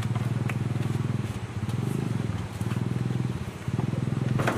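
A small engine running with a rapid, steady pulsing note that dips briefly twice, and a sharp knock near the end.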